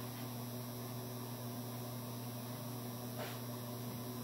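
A steady low electrical hum with a faint even hiss behind it.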